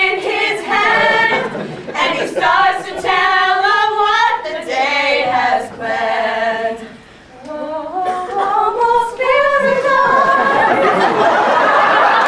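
A group of voices singing together without accompaniment, in phrases broken by short pauses. Near the end the singing gives way to a loud mix of many voices talking over one another.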